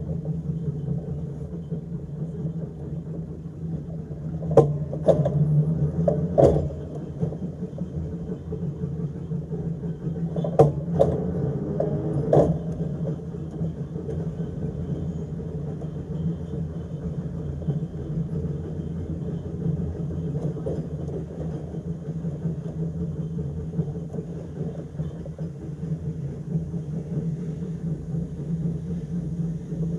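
Electric tram running slowly along the track: a steady low hum, with a few sharp clicks and knocks, about four between four and a half and six and a half seconds in and three more between ten and twelve and a half seconds in.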